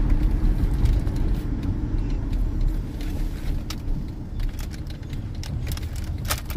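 Inside a moving car: steady low rumble of engine and road noise, with two sharp clicks near the end.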